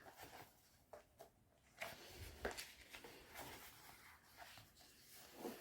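Faint rustling and soft handling of album photo book pages being turned, the strongest rustle about two seconds in.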